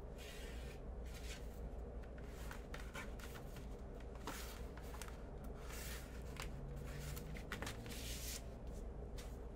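Plastic shrink wrap crinkling and rustling in short, irregular bursts as it is peeled and handled.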